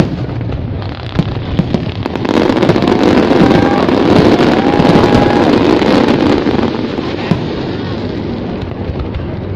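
Fireworks display: a dense, continuous rumble that swells about two seconds in and eases off again around seven seconds, with a few sharp pops.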